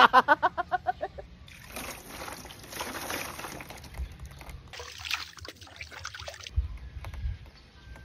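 A rhythmic laugh trails off in the first second. Then comes sloshing, splashing water for about two seconds, and another short stretch of splashing around five to six seconds in.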